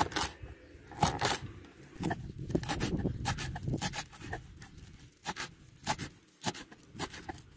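Kitchen knife chopping fresh parsley on a wooden cutting board: short, sharp knocks of the blade against the board at an uneven pace, several to a second.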